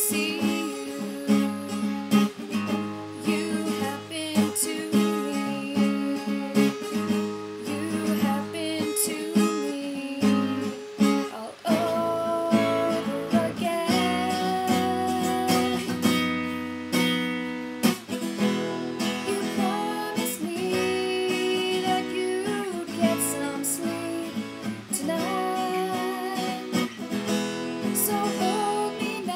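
A woman singing to her own acoustic guitar, strummed steadily throughout.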